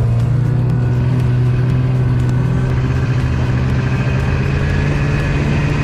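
Snowmobile engine running at a steady, even note while under way across the snow.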